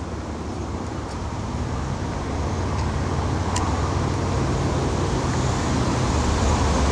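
Low, steady rumbling background noise that slowly grows louder, with one faint click about three and a half seconds in.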